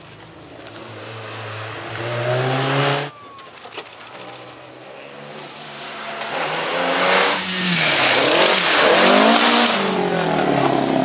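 Historic rally car engines at full throttle through a tight tarmac bend. One car's engine rises in pitch and cuts off sharply about three seconds in. A second car then approaches, its engine note swinging up and down with the throttle and gear changes, and is loudest in the last few seconds, with a harsh hiss over it.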